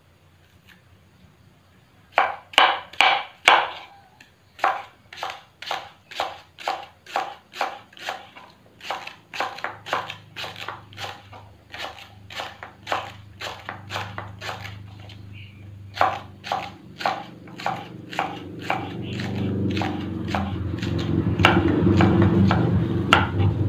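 Kitchen knife chopping fresh taro stems on a wooden cutting board: sharp, even strokes beginning about two seconds in, quick at first and then about two a second. A low rumble builds under the chopping over the last few seconds.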